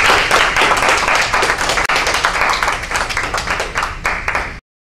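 Small audience clapping, many quick overlapping hand claps, which cut off abruptly about four and a half seconds in.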